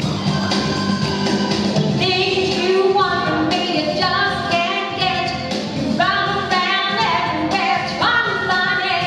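A woman singing a pop-style song into a handheld microphone, amplified through PA speakers, over instrumental accompaniment. The instrumental part plays alone at first and the singing comes in about two seconds in.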